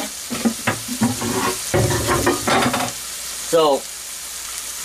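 Ground beef, Italian sausage and garlic sizzling in a frying pan with a steady hiss. Knocks and scrapes of a utensil in the pan come through the first three seconds.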